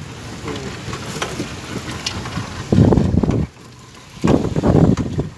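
Wind buffeting the microphone in two loud gusts, the first about three seconds in and the second just after, over a steady background of boat and sea noise.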